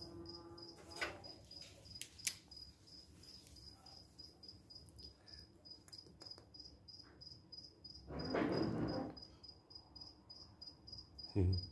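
A cricket chirping steadily, a high even pulse about three times a second. About eight seconds in there is a brief rustling noise, and a soft bump near the end.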